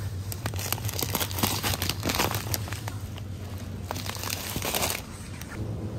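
Plastic bag of panko breadcrumbs crinkling as it is picked up and handled: a run of crackles that stops abruptly about a second before the end.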